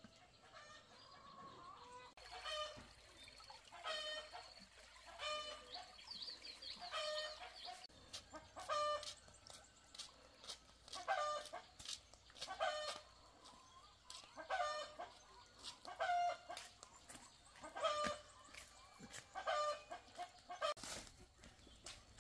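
Chickens clucking: short calls repeating about once a second.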